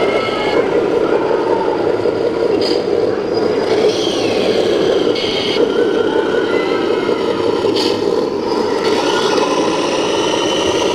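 1:14 scale RC Scania truck's engine-sound module running steadily, a simulated diesel through a small speaker.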